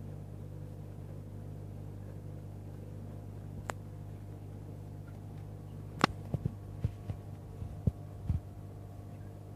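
Steady low hum of the aquarium's circulation pumps and equipment. A single sharp click comes a little under four seconds in, and a cluster of sharp clicks and knocks follows from about six to eight and a half seconds in.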